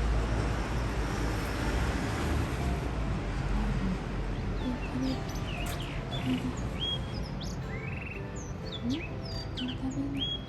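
Blue rock thrush singing: a string of short, quick whistled notes starting about halfway through, over a steady low rumble that is loudest in the first few seconds.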